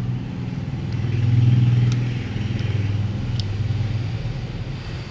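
Low, steady motor-vehicle engine hum that swells about a second and a half in and then eases back. A few faint metallic clicks sound over it as a screwdriver works against the air-conditioning compressor's magnetic clutch parts.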